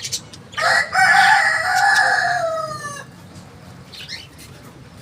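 A rooster crowing once, a long call of about two and a half seconds whose pitch drops at the end, followed by a few short high budgie chirps.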